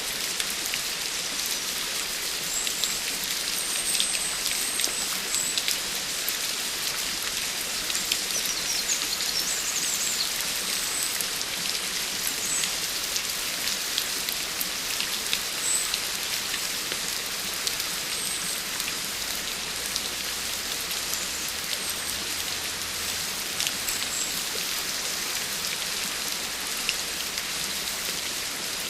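Steady rain falling: an even hiss, mostly high, scattered with many separate drop ticks.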